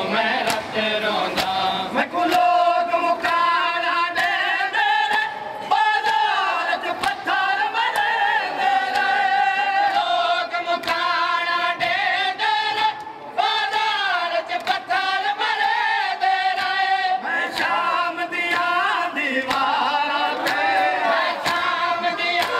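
A male voice chanting a nauha (Muharram lament), with a choir of mourners joining in. Regular sharp slaps of matam chest-beating run under the chant.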